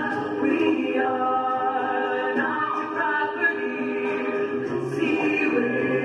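Mixed-voice a cappella group singing sustained chords in harmony, voices only with no instruments.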